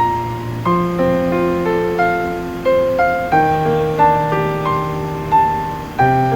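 Background music: a gentle piano melody with chords, notes struck about every half second and ringing out.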